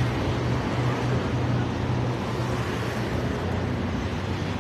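A steady low engine hum over outdoor background noise, unchanging throughout.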